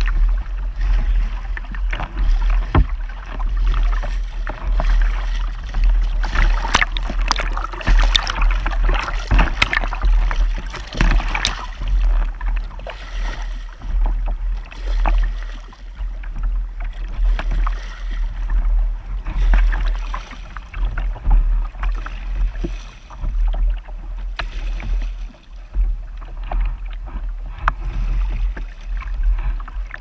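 Water rushing and splashing along a kayak's hull, heard right at the low-mounted camera, with many small splashes and droplets ticking on the housing over a steady low rumble. The splashing is busiest from about six to twelve seconds in.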